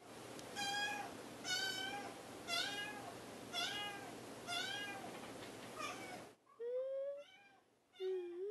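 A young kitten meowing repeatedly, high-pitched calls about once a second, growing fainter after about six seconds.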